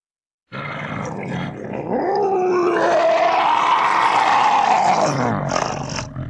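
Hanna-Barbera cartoon monster roar sound effect: one long roar that starts about half a second in, rises in pitch, holds, and falls away near the end.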